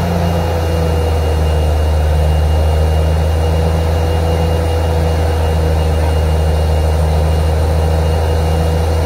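Truck-mounted borewell drilling rig running steadily, its engine giving a heavy, even low drone, with a faint higher tone slowly falling in pitch.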